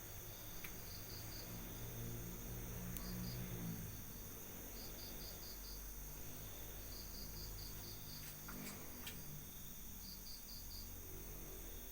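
A cricket chirping at night in short trains of three to five quick pulses every couple of seconds, over a low steady hum that swells about two to four seconds in.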